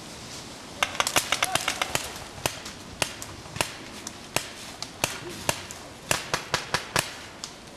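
Paintball markers firing. A rapid string of sharp pops starts about a second in, followed by single shots and short volleys every half second or so until near the end.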